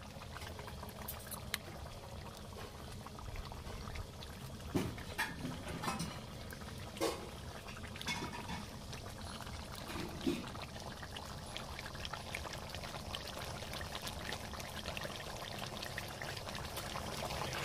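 Wood burning in a mud cooking stove, crackling and hissing, with scattered small pops and a few short squeaky tones about a third of the way in.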